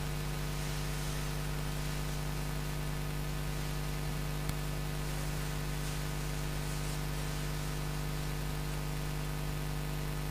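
Steady low electrical or mechanical hum, a constant drone with several fixed tones over faint hiss, with one faint click about four and a half seconds in.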